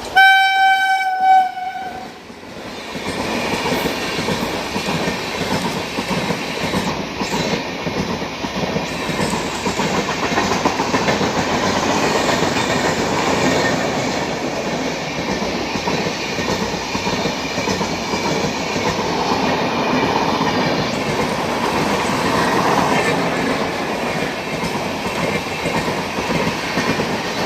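An Indian Railways express train passing: a single locomotive horn blast sounds at the start. About two seconds in, the loud, steady noise of the train's wheels running on the rails sets in and carries on.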